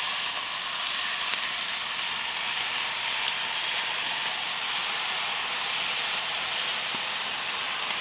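Chicken and mole sauce sizzling steadily in a hot pan.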